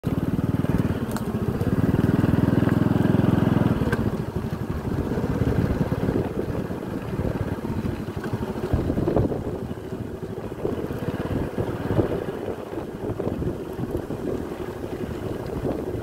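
Small motorcycle engine running as the bike rides along a dirt track, louder for the first four seconds or so, with a few sharp knocks later on.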